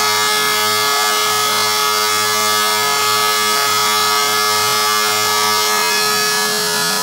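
Shapeoko 3 CNC router's spindle running with a steady high whine while its bit cuts lettering into a wooden sign, with the rough, uneven noise of the cut under the whine.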